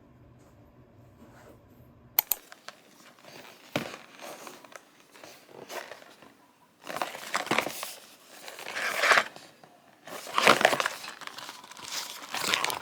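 Packaging being handled and opened, crinkling and rustling. It starts with a couple of sharp clicks about two seconds in, then comes in several loud rustling bursts that grow stronger toward the end.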